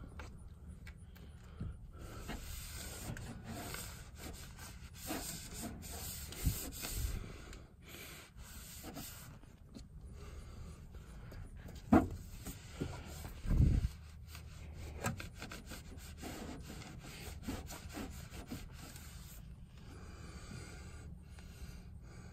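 Cloth wiping and rubbing over the metal panel inside a pickup's wheel well, in repeated strokes. A sharp knock and a heavier thump a little past halfway are the loudest sounds.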